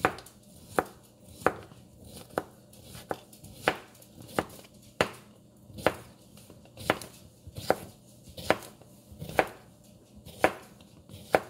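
Kitchen knife slicing a cucumber on a cutting board, each stroke ending in a sharp tap on the board, at a steady pace of a little more than one cut a second.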